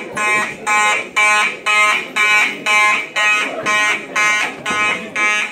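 Simplex 4903-9219 fire alarm horns sounding in rapid, evenly spaced blasts, about two a second. This is the building's evacuation signal.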